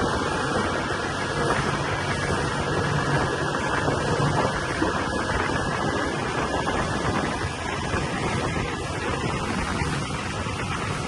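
30 hp Yamaha outboard motor running steadily under way, with wind noise on the microphone.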